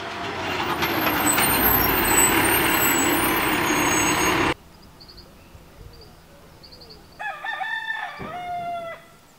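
Garbage truck running loudly as it is loaded at the curb, cutting off suddenly after about four and a half seconds. A quieter stretch with a few faint bird chirps follows, then a rooster crows twice near the end.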